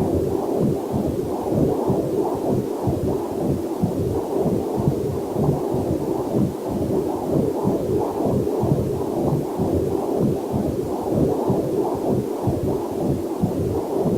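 Fetal Doppler heart monitor picking up a heartbeat: fast, even whooshing pulses, two to three a second, over a faint steady hiss of waterfall sound.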